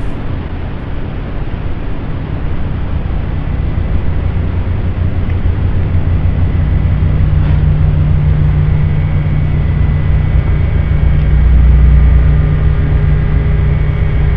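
Loud steady low rumble with hiss, growing louder, with a few faint steady hum tones coming in about nine seconds in; it sounds like static.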